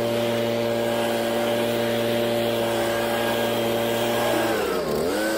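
Handheld cordless leaf blower running with a steady whine and rush of air. About four and a half seconds in, its motor briefly slows and drops in pitch, then speeds back up.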